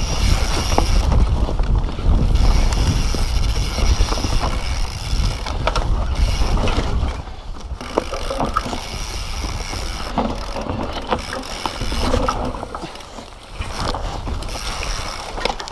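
Mountain bike riding fast down a rough dirt and rock trail: wind buffets the camera microphone with a heavy rumble for the first half, then the chain, frame and suspension rattle and knock over bumps, with the rear hub's freewheel ratcheting as the rider coasts.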